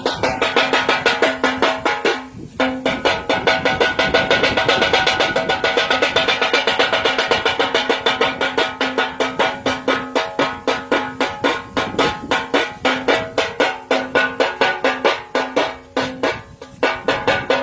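Bird-scaring clapper in a rice field clacking rapidly and rhythmically, about five strokes a second, with a steady ringing tone. The clacking briefly falters about two seconds in and again near the end.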